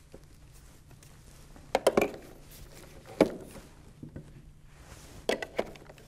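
Scattered plastic knocks and clicks from an upright vacuum's hose and wand being handled and stowed back on the machine: a quick cluster about two seconds in, a single knock a little after three seconds, and two more near the end.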